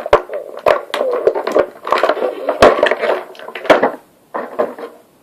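Toy packaging being handled: rapid sharp clicks and crackles of plastic and cardboard, with indistinct voices mixed in. It stops about four seconds in, followed by one last short burst of crackling.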